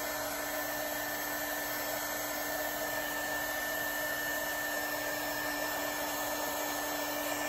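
Hot air gun running steadily, a rush of air with a constant motor tone, blowing on a wooden clock-base foot to soften the hide glue that holds it.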